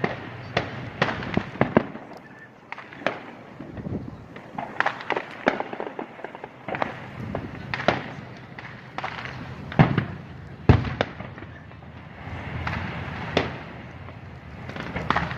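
Fireworks display: an irregular string of sharp bangs and pops, sometimes several in quick succession, with a noisy hiss between them. The loudest two reports come about ten and eleven seconds in.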